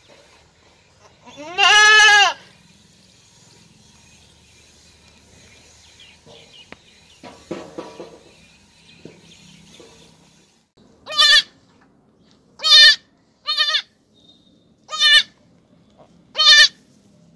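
A goat gives one long, wavering bleat about two seconds in. After some faint rustling, a newborn kid bleats five times in short, high-pitched cries.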